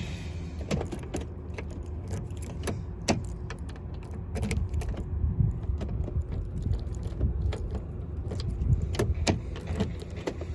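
Scattered clicks and light rattles, with a jingle of keys, from handling inside a car cabin over a low steady rumble, before the engine is started.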